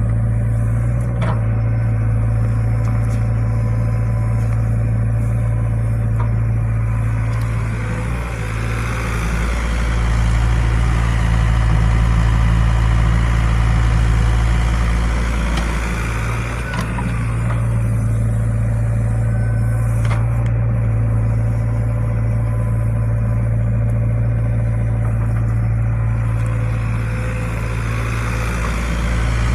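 Diesel engine of an excavator running steadily at working speed, with a low, constant hum. For several seconds midway the sound grows fuller and a little louder as the engine takes on load.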